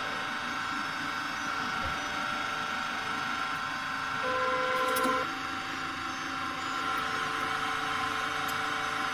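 Hydraulic press's pump motor running steadily as the ram closes and begins to load up. About four seconds in, a higher steady tone joins for about a second.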